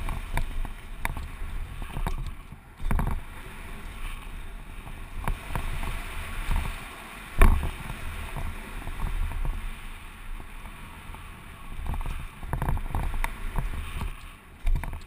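Wind rushing over a helmet-mounted camera and the tyres of a Giant Glory downhill mountain bike rolling over a dirt jump trail. The bike gives short knocks and rattles over bumps and landings, the loudest of them about seven seconds in.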